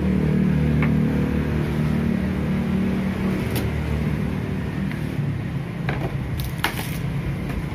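A steady low motor hum runs throughout, easing slightly after the middle. A few light clicks come over it, and near the end there is a short clatter as a plastic ice-cream tub's lid is handled.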